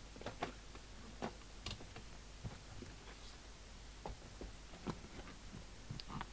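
Faint, irregular light clicks and taps, about eight of them, from handling equipment on a workbench, over a low steady mains hum.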